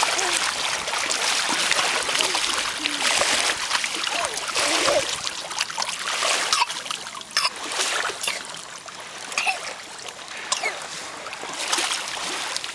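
Lake water splashing and trickling around a small child in the water, with many short splashes and faint voice sounds.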